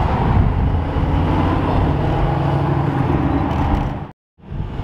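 Mercedes-AMG GT roadster's twin-turbo V8 running loud and steady as the car drives through an intersection, with a deep, low exhaust note; the sound cuts off suddenly near the end.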